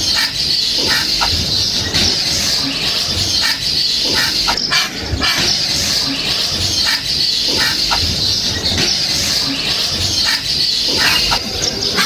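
A flock of small birds chirping in a dense, continuous high-pitched chorus, with a few sharper calls standing out over it.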